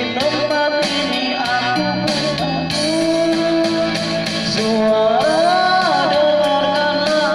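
Band music with guitar and a gliding sung or lead-guitar melody, playing continuously at a steady loud level.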